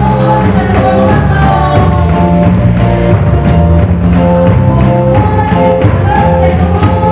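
Loud worship music through loudspeakers, with steady bass and melody notes over a regular beat and tambourine jingles on each stroke.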